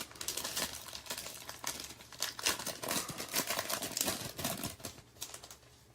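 Foil wrapper of a Panini Prizm football card pack crinkling and tearing as it is opened, a dense run of small crackles that dies down near the end.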